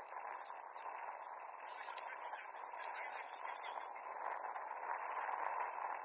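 Steady outdoor field noise with faint, indistinct voices mixed in.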